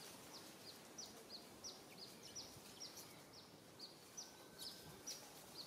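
Faint bird chirping: short, high, falling chirps repeated about three times a second over quiet outdoor background.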